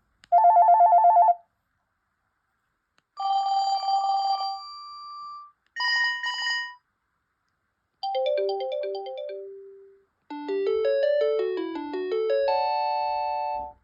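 Panasonic KX-TGCA20 cordless phone handset playing its ringtones one after another, with short gaps between them. The first few are rapid electronic trilling rings, and the last two are short melodies of quick electronic notes.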